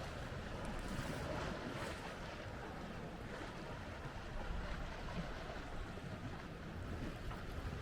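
Wind buffeting the microphone with a steady low rumble, over the wash of sea waves on the shore.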